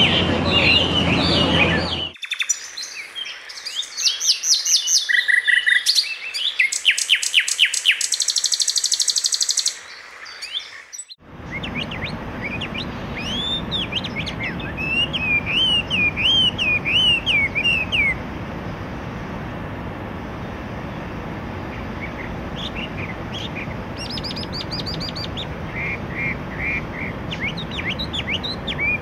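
Chinese hwamei (melodious laughingthrush) singing: long, varied song of rapid runs of repeated high notes and rising-and-falling whistled phrases, with brief pauses between phrases.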